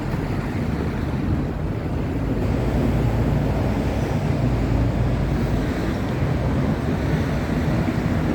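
Steady low rumble of city street traffic, swelling slightly a couple of seconds in.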